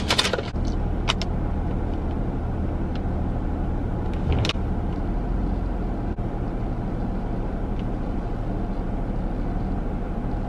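Car engine idling steadily, heard from inside the parked car's cabin as a low hum. A few brief rustles and clicks from a paper bag and cup being handled come at the start, about a second in, and about four and a half seconds in.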